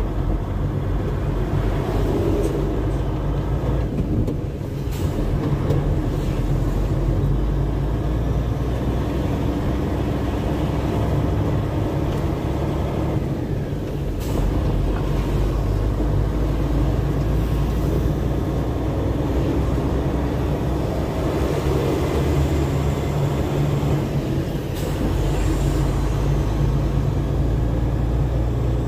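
Heavy truck's diesel engine running under way, a steady low drone with road noise; the engine sound drops briefly and comes back three times.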